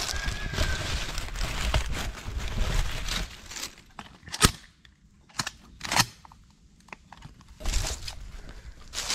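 Dry leaf litter crunching and rustling, then a single sharp shotgun blast about four and a half seconds in, the loudest sound here, followed by two fainter clicks about a second later and more crunching near the end. The shotgun is firing buckshot at a feral hog.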